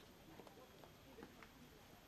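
Near silence: faint outdoor background with scattered faint distant voices and small ticks.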